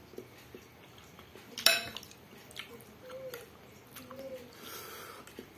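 Metal spoon clinking against a glass bowl of noodle soup, one sharp clink a little under two seconds in and a few lighter taps, with soft eating and chewing sounds between.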